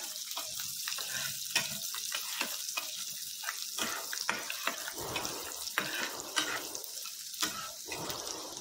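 Garlic cloves and chopped green chillies sizzling in hot oil in a nonstick pan, being crisped as a tempering. A steady frying hiss runs throughout, with frequent clicks and scrapes as a spatula stirs the pan.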